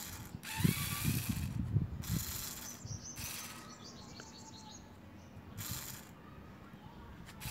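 Small geared motors and plastic gears of a VEX motorized robotic arm, running in several separate short runs of under a second each as the arm is lowered, with some low rattling from the plastic frame.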